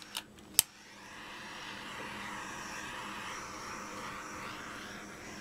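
Two sharp clicks from a handheld butane torch's igniter, then the torch flame hissing steadily from about a second in.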